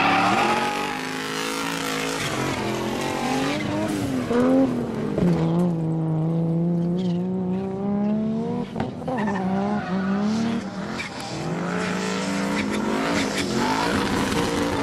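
Drift cars' engines revving hard while sliding sideways, the pitch rising and falling with the throttle and held fairly steady for a few seconds midway, over the squeal and scrub of tyres spinning through the drift.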